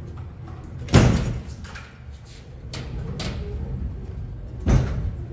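Heavy metal clunks from the stripped-down Ford Courier's sheet-steel cab as it is wiggled into place: one loud bang about a second in and another near the end, with a couple of lighter knocks between them.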